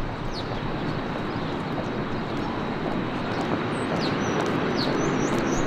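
Outdoor city ambience: a steady rumble of traffic, with small birds chirping now and then, more often in the last couple of seconds.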